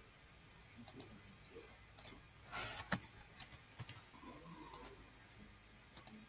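Faint, scattered clicks of a computer mouse and keyboard, single sharp clicks roughly a second apart with a small cluster about two and a half seconds in.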